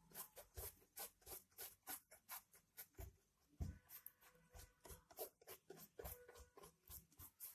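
Paintbrush strokes spreading thick paint over a cardboard box: a faint, scratchy brushing about three times a second.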